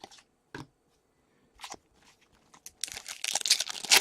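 A few faint taps, then from about three seconds in a trading-card pack wrapper crinkling loudly as it is torn open.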